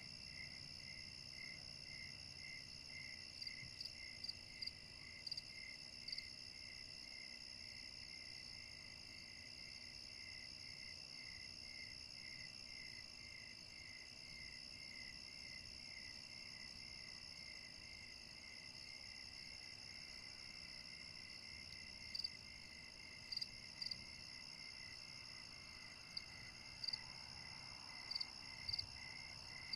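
Night chorus of crickets: several steady high trills, one pulsing about twice a second, with short sharp chirps now and then that come more often near the end.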